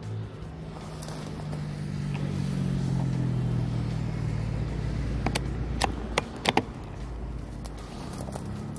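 A motor vehicle's engine running with a steady low hum that grows louder toward the middle and eases off near the end. Several sharp clicks come between about five and six and a half seconds in.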